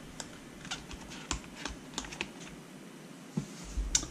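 Irregular light clicks and taps of hard plastic being handled: a hard-case RC battery pack being handled and set down on the rock crawler's chassis, with a louder knock near the end.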